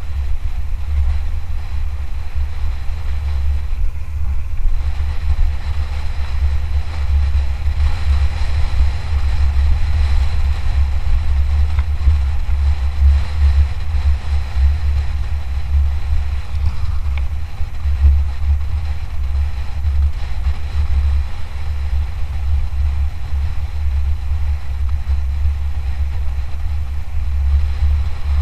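Steady low wind rumble on the microphone, with an even hiss of the Lapierre Zesty 427 mountain bike's tyres and frame over the trail, while riding downhill at speed.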